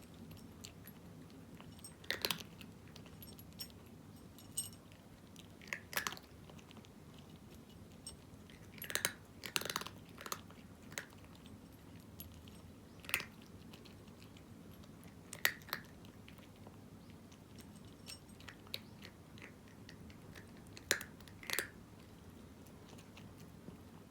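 A cat crunching dry kibble: sharp, irregular crunches a few seconds apart, some in quick pairs, with quiet pauses between bites.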